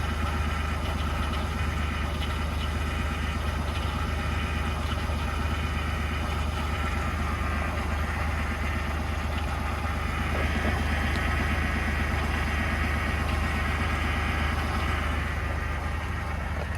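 2021 Ford F-150 PowerBoost hybrid idling steadily in Park on a −20 °C cold start, with a slight cavitating, grinding noise under the engine sound. The noise is present only in Park and goes away in Reverse or Drive.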